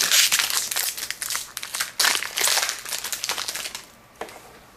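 Crinkling, rustling handling noise as trading cards from a hockey card pack are handled, in two stretches of about two seconds each.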